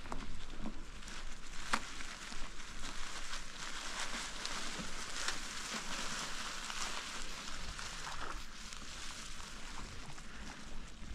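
Bicycle tyres rolling over dry fallen leaves on a dirt trail: a steady crackling rustle with many small snaps, one sharper snap about two seconds in.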